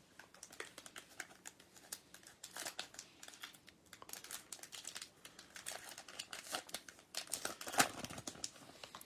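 Foil wrapper of a Topps Stadium Club baseball card pack crinkling and tearing as it is ripped open by hand: a faint run of small, irregular crackles, with the loudest tear near the end.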